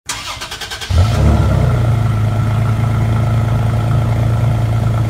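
2018 Toyota Tacoma TRD Off Road starting, heard at the exhaust tip: the starter cranks for just under a second, then the engine catches about a second in with a short rise in revs and settles into a steady idle.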